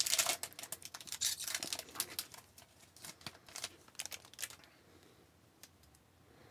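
Wrapper of a hockey trading card pack crinkling and tearing as it is opened by hand: a dense run of crackles that dies away at about four and a half seconds in.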